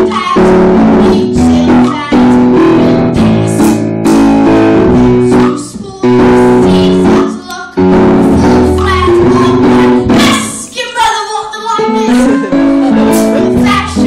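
A stage musical number's accompaniment, with a plucked, guitar-like sound playing repeated chords to a steady beat. A voice sings over it for a stretch in the second half.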